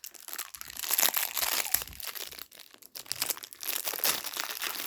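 Plastic packaging crinkling and rustling as it is handled, with a brief quieter lull about halfway through.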